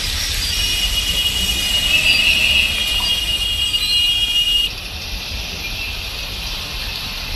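Heavy rain and traffic noise on a flooded street, a steady hiss throughout. A high steady whine of several tones sounds for about four seconds and stops abruptly, where the sound drops to a slightly quieter hiss.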